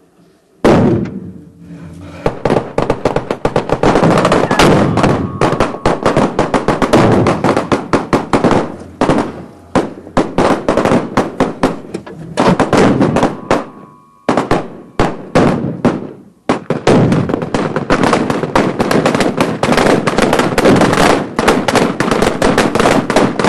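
Heavy automatic gunfire: rapid bursts of shots from several weapons overlapping, opening with one loud bang about a second in, with brief lulls near the middle.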